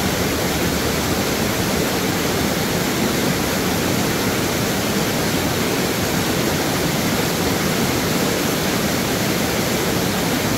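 Waterfall pouring over stepped rock ledges: a steady, unbroken rush of falling water.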